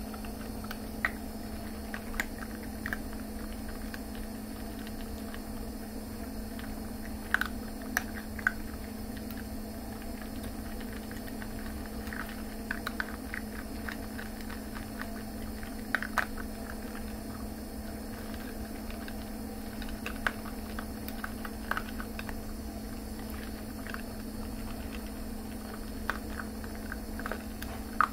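Dachshund puppies crunching dry kibble from a bowl: irregular small crunches and sharp clicks, over a steady low hum.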